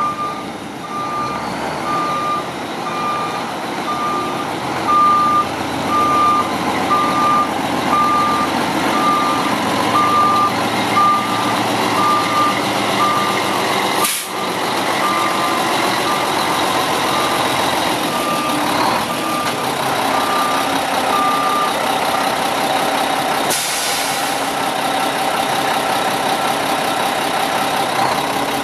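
Mack RD688S dump truck's back-up alarm beeping steadily, about one and a half beeps a second, over its diesel engine running while the truck reverses. The beeping stops about three-quarters of the way through, and the engine runs on.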